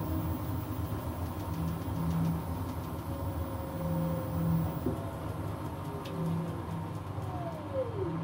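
Beko front-loading washing machine in its spin cycle: the motor and drum run with a steady hum and rumble, and a falling whine near the end as the drum slows down.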